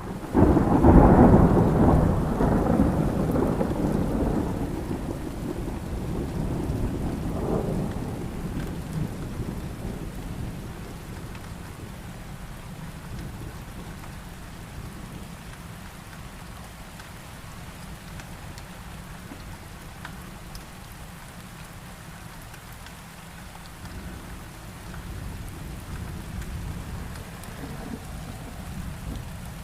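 Thunderstorm: a thunderclap breaks out just after the start over heavy rain, its rumble rolling and slowly dying away over about ten seconds, with a second swell around seven seconds in. Steady heavy rain follows, and a fainter low rumble comes a few seconds before the end.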